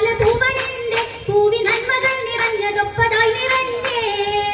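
Female voices singing an Oppana (Mappila wedding song) in long held, wavering notes, with sharp rhythmic hand claps about three a second from the dancers.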